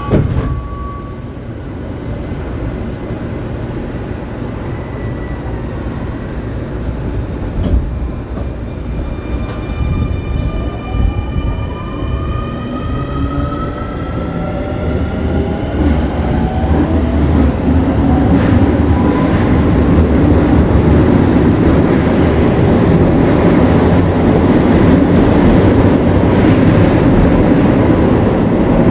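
Keio 9000 series train heard from inside the car as it gathers speed: the traction motors' inverter whine climbs in several rising tones from about ten seconds in, and the rumble of wheels on rail grows louder.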